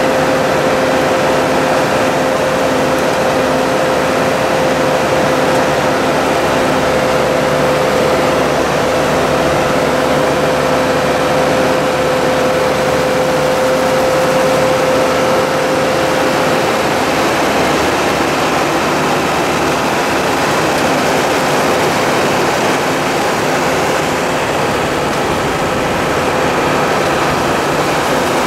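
Tractor engine running steadily with a side-mount blueberry harvester working through the bushes, a continuous mechanical drone. A steady tone over it fades out a little past halfway.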